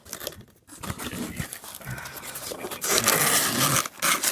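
Packaging being torn open and crinkled by hand, with irregular rustling and sharp crackles.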